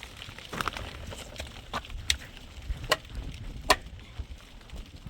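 Five sharp, irregularly spaced knocks over a low rumbling background, the loudest two a little after the middle.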